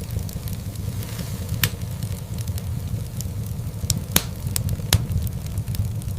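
Wood fire crackling in a fireplace: a steady low rumble of burning logs with scattered sharp pops and snaps, several louder ones close together around four to five seconds in.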